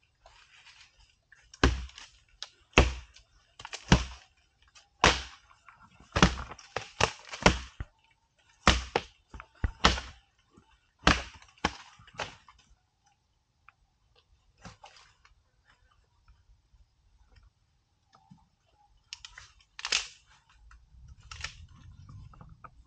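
An Asian elephant feeding: a run of sharp cracks and crunches from plant stems being snapped and chewed, about one a second for the first half, then a few scattered ones near the end.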